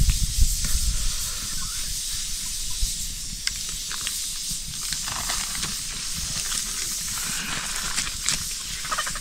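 Steady hiss with scattered sharp clicks and crackles, and some low rumble in the first second or so.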